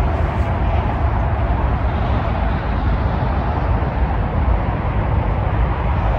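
Wind buffeting the microphone: a steady, loud rumbling hiss with no other clear sound above it.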